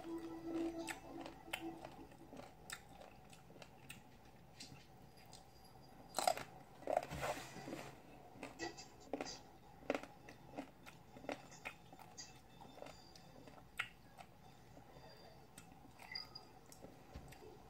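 Close-up crunchy chewing and biting of firm green mango slices, with irregular small crunches throughout and a louder cluster about six to seven seconds in.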